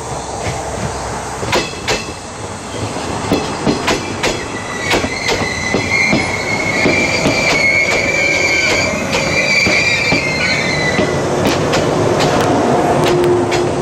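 Local electric train rolling slowly past, its wheels clacking irregularly over rail joints and points. A high, steady wheel squeal sets in about four seconds in and fades out around eleven seconds, while the running noise grows louder as the cars draw alongside.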